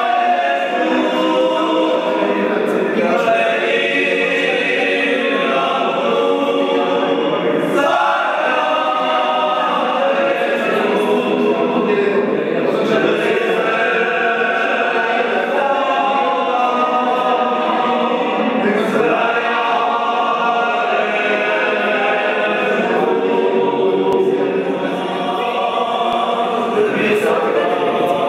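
A group of people singing a Moravian folk song together without instruments, in sustained held notes.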